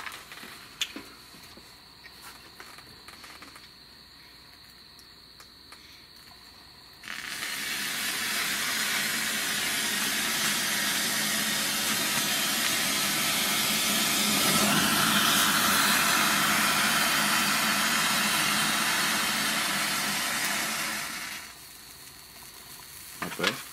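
Homemade potassium chlorate rocket fuel, unconfined in an open pan, catches about seven seconds in. It burns with a steady loud hiss for about fourteen seconds, then dies away.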